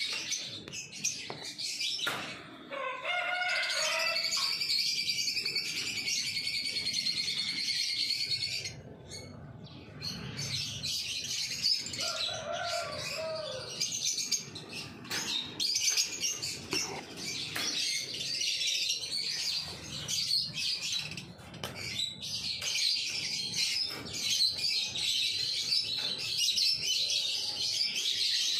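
Lovebirds chirping and chattering, many high chirps overlapping almost without a break, with a brief lull about nine seconds in.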